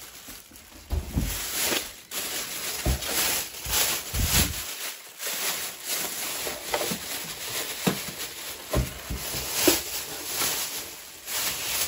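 Clear plastic packaging bags crinkling and rustling as they are handled and pulled off a mug heat press, with a few dull knocks as the press is moved.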